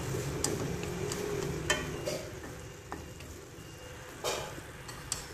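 Snail meat stir-frying in lard and chili in a hot pan, sizzling, with the spatula scraping and knocking against the pan several times.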